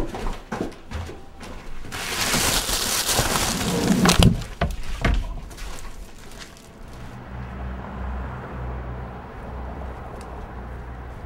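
Footsteps going down a wooden staircase, then a loud stretch of rustling and handling of a trash bag in a plastic bin with a few knocks, then outdoor ambience with a low steady engine hum.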